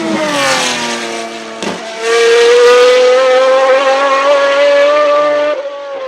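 Naturally aspirated race car engine at high revs. Its note falls over the first second. About two seconds in it pulls hard with a loud, slowly rising note, which drops away near the end.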